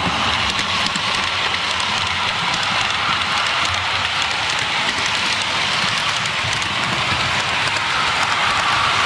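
Model trains running on a layout: a steady rattle of wheels rolling over the track, with faint clicks and the hum of the locomotive motors.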